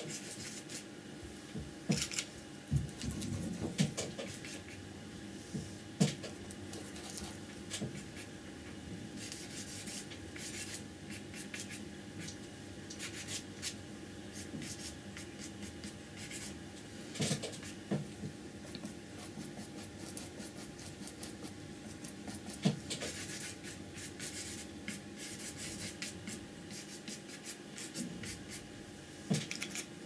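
Flat paintbrush rubbing and scratching paint onto heavy paper in short, irregular strokes, with small clicks between them. A faint steady hum runs underneath.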